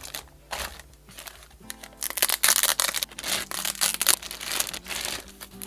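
Packaging rustling and crinkling in loud, irregular bursts, heaviest in the middle, as a boxed collectible figure is pulled out of its packing, over background music.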